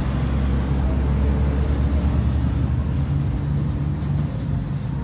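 Road traffic: a motor vehicle's engine running with a steady low hum that eases off near the end.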